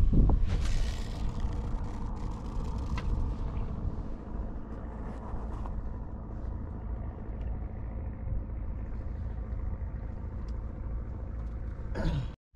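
Fishing boat's engine running steadily with a low rumble, and a brief rushing hiss about half a second in. The sound cuts off suddenly just before the end.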